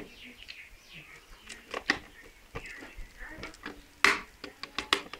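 Sharp clicks and knocks of plastic miniature circuit breakers and a screwdriver being handled while wiring, the loudest about four seconds in. Birds chirp faintly in the background.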